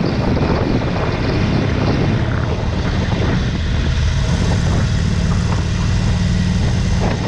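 Harley-Davidson V-twin motorcycle engine running at cruising speed, with wind rushing over the microphone. Its note settles into a steady hum about halfway through.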